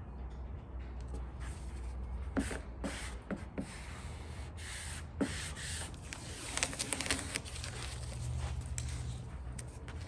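Clear application tape being peeled off a vinyl decal on a truck's painted body panel: irregular crackling and film rustling that comes in short strokes at first and is heaviest and sharpest past halfway, over a low steady hum.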